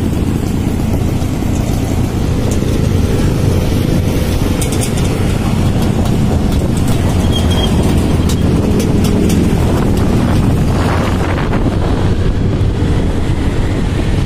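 Motorcycles running steadily while being ridden, with wind rushing over the microphone.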